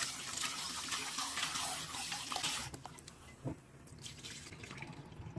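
Kitchen tap water running into a rice cooker's inner pot while hands scrub and swish white and glutinous rice in it. The tap stops about two and a half seconds in. The cloudy rinse water is then poured off into a stainless steel sink, more quietly, with one light knock of the pot.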